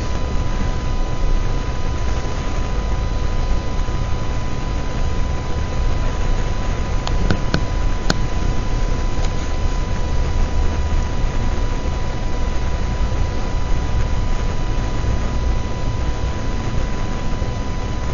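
Steady electronic hiss and low rumble with a thin steady whine, the noise floor of a cheap webcam microphone; a few short clicks about seven to eight seconds in.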